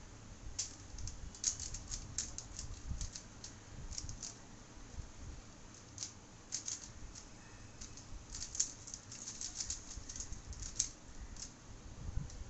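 Plastic 3x3 Rubik's cube being speed-solved: rapid clicking and clacking as the layers are turned, in irregular bursts with short pauses between them.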